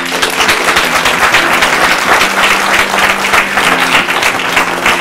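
Audience applauding: many people clapping at once, starting suddenly and keeping up steadily, with soft background music underneath.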